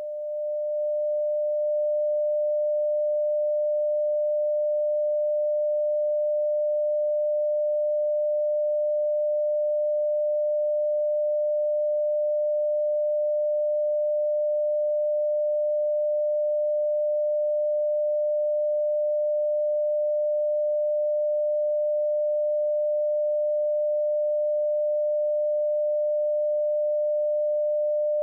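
Broadcast line-up tone: a single steady pure tone played with colour bars, reaching full level within the first second or two and then held unchanged.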